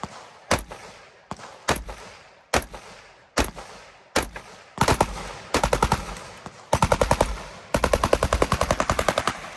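Rifle fire from a 7.62x39 rifle, the T6 Firearms TCS Growler. Single shots come just under a second apart, then from about halfway through come several rapid strings of shots at roughly ten a second, each shot ringing out briefly.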